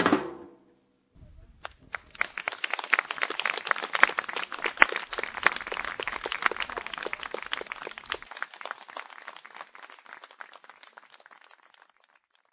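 The last notes of a jazz piece die away. About a second later audience applause starts, a dense patter of clapping that swells, then slowly thins and fades out near the end.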